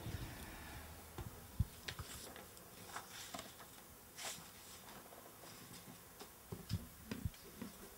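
Faint, scattered clicks and rustles of paper pages being turned and a handheld microphone being handled, with a few low knocks from the microphone near the end.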